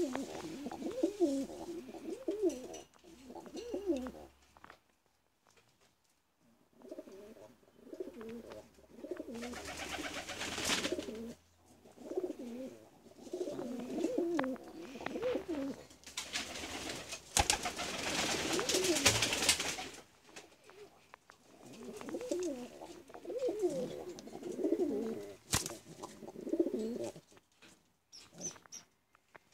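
Domestic pigeons cooing in a loft: repeated low, wavering coos in three bouts with short pauses between them. Two louder bursts of rustling noise come midway.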